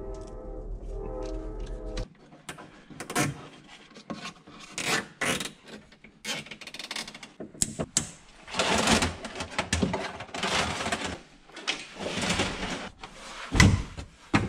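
Hands working plastic trim panels and wiring in a UTV's front compartment: irregular rustling and scraping with sharp plastic clicks and knocks, the loudest knock near the end. A steady pitched hum runs for the first two seconds.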